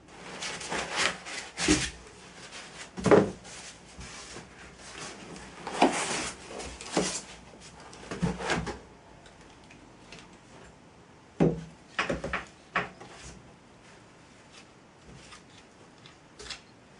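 Irregular knocks, scrapes and rubbing of hard objects being handled, in two busy stretches with a quieter gap between, and one sharp tick near the end.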